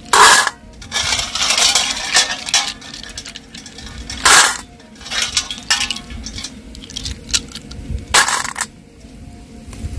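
Wet snail shells clinking and rattling against one another and the bowls as handfuls of freshly rinsed snails are scooped out of a steel basin of water and dropped into a small glass bowl. Three louder bursts come about four seconds apart, with busy clattering between them.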